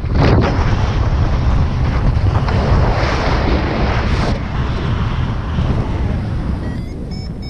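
Airflow buffeting the microphone of a camera on a paraglider in flight: a loud, steady rush of wind noise that eases a little near the end as the glider slows low over the ground.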